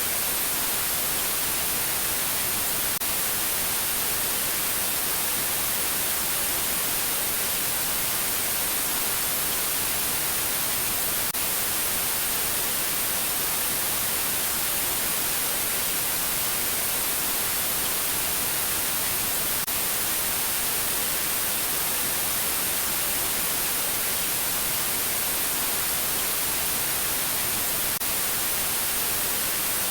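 Loud, steady static hiss, an unbroken white-noise rush with no tone or rhythm, brightest in the high end.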